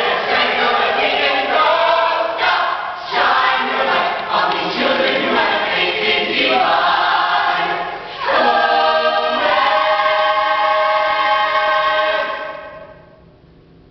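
A choir singing together, ending on a long held chord that fades out near the end.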